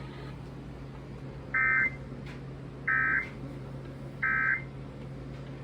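Emergency Alert System end-of-message code: three short, identical two-tone digital data bursts (the SAME 'NNNN' bursts) with about a second between them, marking the end of the severe thunderstorm warning. A low steady hum runs under them.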